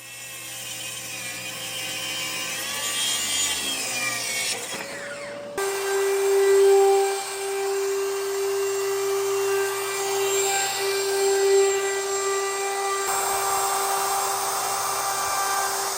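Electric woodworking power tools cutting solid white oak. A motor whine wavers in pitch for the first few seconds, then holds steady and high through the rest.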